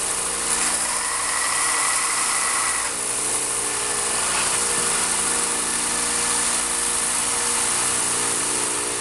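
4x36 belt sander running while a cable Damascus knife blade is hollow ground against the belt: a steady motor hum under a loud grinding hiss.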